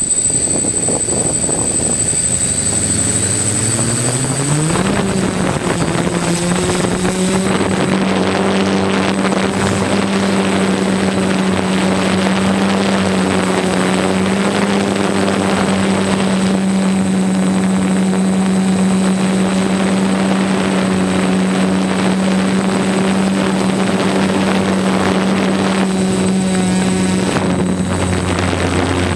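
A DJI multirotor drone's electric motors and propellers, heard close up from a camera mounted on the frame. They spin up with a rising whine over the first few seconds as it lifts off, then hold a steady buzzing hum while it climbs, and the pitch shifts near the end.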